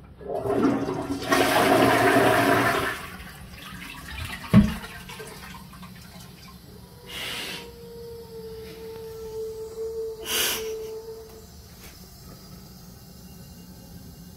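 Toilet flushing: a loud rush of water for about three seconds. It is followed by a single sharp thump, and later by a faint steady whine lasting a few seconds.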